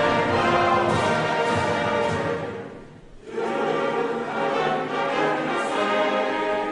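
Slow orchestral music with brass. It dies almost away about three seconds in, then resumes.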